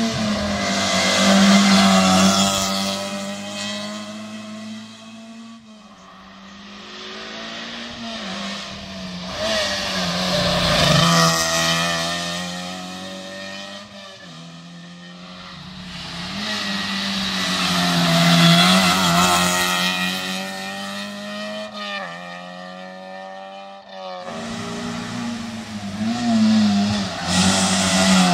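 Toyota Yaris rally cars passing at speed on a tarmac stage, one after another, four times. Each engine is revved hard, rising as the car approaches and falling away as it passes.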